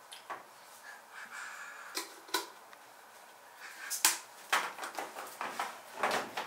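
Plastic detergent dispenser bottle being handled: a thin pour of softener into a washing machine's detergent drawer, then a series of plastic clicks and knocks that come thicker in the second half as the bottle and its cap are handled.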